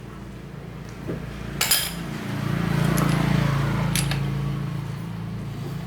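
Metal clinking twice, about two seconds apart, over a steady mechanical hum that swells with a hiss in the middle.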